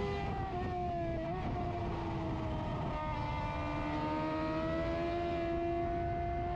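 Onboard sound of an F1000 formula race car's 1000 cc motorcycle-derived engine pulling under load: the note dips briefly about a second in, then climbs slowly and steadily as the car accelerates.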